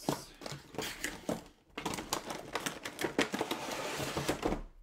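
Packaging being handled: a clear plastic bag crinkling, with quick clicks and taps. There is a brief lull, then a dense stretch of rustling from about two seconds in.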